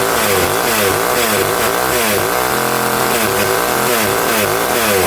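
Old Skil 1616 two-stroke chainsaw running loudly, its engine revved up and down over and over with quick blips of the throttle, held steady briefly about halfway through.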